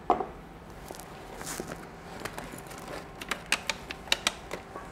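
A mug set down on a table with a knock just after the start, then a run of small clicks and knocks as a hand rummages among objects in a bag, busiest around the fourth second.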